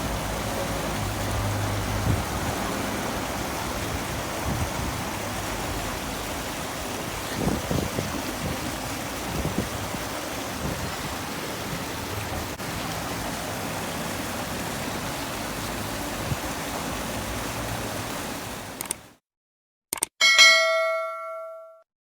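River water rushing in a steady, even flow, fading out about nineteen seconds in. Near the end a single bell-like ding rings and dies away.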